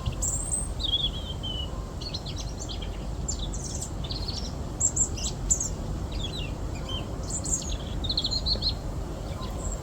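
Small songbirds at winter bird feeders calling: many short, high chirps and thin trills from several birds, coming and going throughout, over a steady low rumble.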